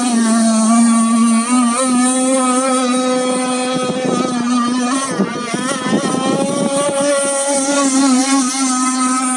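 Radio-controlled model racing boat motors running flat out: a steady high buzzing whine with several overtones, wavering a little in pitch. About midway it turns rougher and noisier for a couple of seconds, then the steady whine returns.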